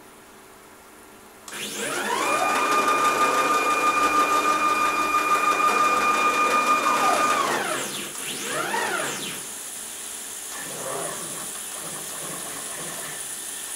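CNC router's stepper motors driving the gantry along the table: a whine that rises in pitch as the axis speeds up, holds steady for about five seconds, and falls away as it slows to a stop. A second, shorter move rises and falls about halfway through, and then only a quieter steady hum remains.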